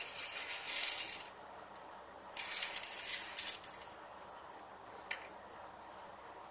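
Crisp fried nimki (namak pare) pieces clattering and rustling against one another and a plate as a hand picks them up, in two bursts, then one small click about five seconds in.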